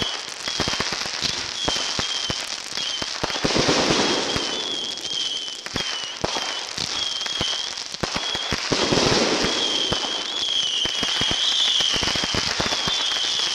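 Consumer fireworks going off in a dense run of crackles and pops, with swells of louder crackling about three and a half seconds in, around nine seconds and again near the end. A wavering high whistle comes and goes throughout.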